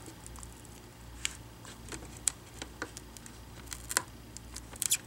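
Scattered small clicks and ticks of a plastic prying tool and fingers working the plastic screen bezel of a Dell Chromebook 11, lifting the bezel off its adhesive pad. The sharpest clicks come about four and five seconds in.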